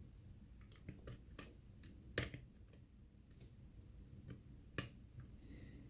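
A lock pick working the pins of a six-pin challenge lock under tension: scattered small metallic clicks as it lifts pins and catches on the warding, with two sharper clicks about two seconds in and again near five seconds, then a faint scrape near the end.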